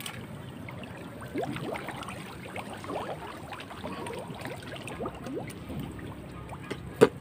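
Muddy river water sloshing, trickling and dripping as a bamboo-framed shrimp net is lifted and its mesh gathered up, with many short gurgling drips. A single sharp click about seven seconds in.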